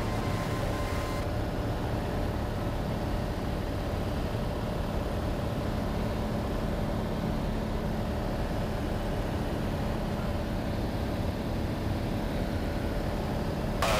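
Cessna 182's piston engine and propeller droning steadily at cruise, heard inside the cockpit. The high hiss drops away about a second in.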